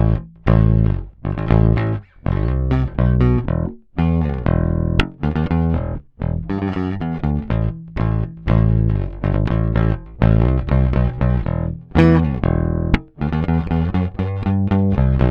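Bass guitar strung with Blacksmith bass strings, played solo in short phrases of plucked notes separated by brief stops.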